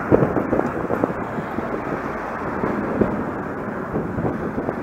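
Wind buffeting the microphone over a steady rush of outdoor road noise.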